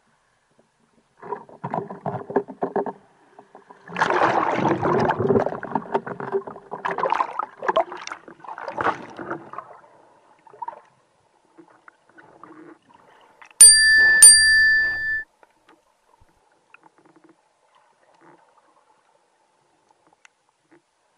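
Sea water splashing and bubbling as the diver goes under, loudest a few seconds in and then fading. About fourteen seconds in come two bright metallic strikes half a second apart, each ringing on briefly.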